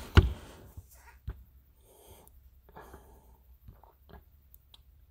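Breathing and mouth noises close to a microphone, with a sharp thump about a quarter second in and a fainter click about a second later.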